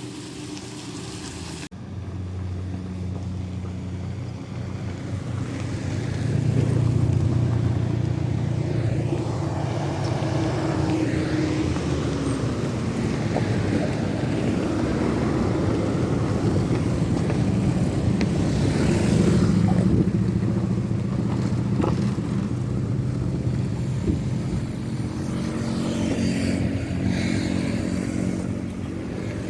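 Motor vehicle engine running steadily, with an abrupt change about two seconds in; it grows louder from about six seconds in and stays at that level.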